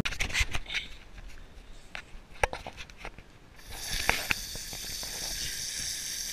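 Ground firework fountain spraying sparks: scattered pops and crackles, then a steady hiss that starts about three and a half seconds in.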